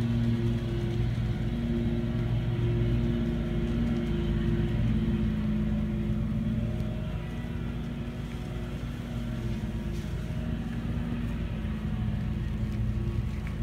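Lawn mower engine running steadily, a low droning hum whose level wavers and dips a little around the middle.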